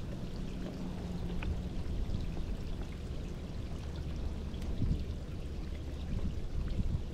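Rain falling steadily on open water, with small scattered drop ticks over a low steady rumble.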